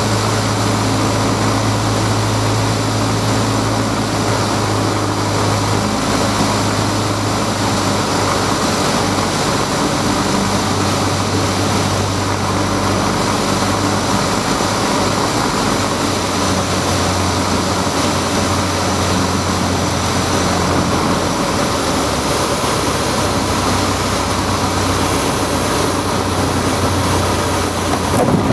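Light aircraft's piston engine and propeller droning steadily, heard from inside the cockpit over a wash of airflow noise. The engine note steps slightly lower twice as power is reduced on final approach to land.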